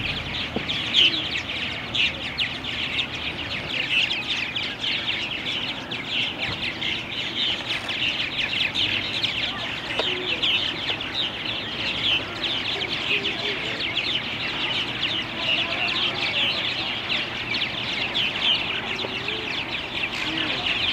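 A large colony of purple martins calling: a dense, steady chorus of many overlapping chirps from hundreds of birds.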